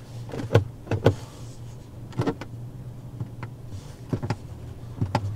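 Several short clicks of the overhead console's LED light buttons being pressed, over the steady low hum of the running car's cabin.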